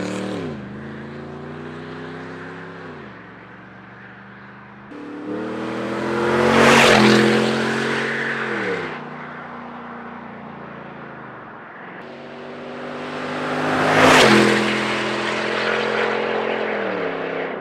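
2013 Ford F-150 Raptor's 6.2-litre V8 through universal valved mufflers with the valves open and the resonators deleted, a loud open exhaust under throttle. It swells to two loud peaks, about a third of the way in and again past the middle, with the pitch dropping away after each as the truck goes past.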